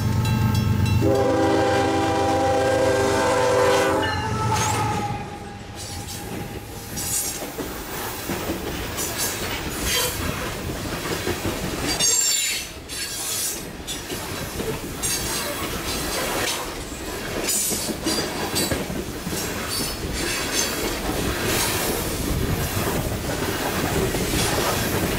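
Canadian Pacific freight locomotive's horn sounding a long chord blast for the crossing, ending about four seconds in over the locomotives' engine rumble. Then loaded coal cars roll past, with steady wheel clatter over the rail joints and crossing and intermittent high wheel squeal.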